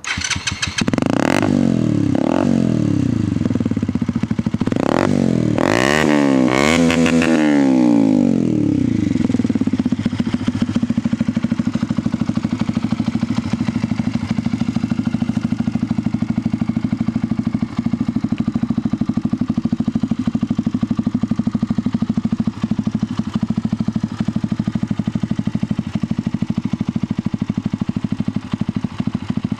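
Keeway RKF 125 single-cylinder engine through an SC-Project exhaust with the dB-killer fitted, blipped sharply five or six times in the first eight seconds, then settling to a steady idle.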